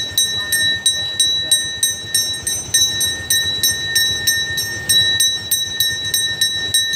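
Brass pooja hand bell (ghanta) rung continuously at about three strokes a second, its ring holding steady. It is the bell that accompanies the arati waved during the puja.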